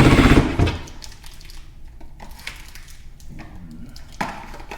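Power drill driving a small screw into soft wood, stopping a little over half a second in, followed by faint clicks and knocks of small parts being handled.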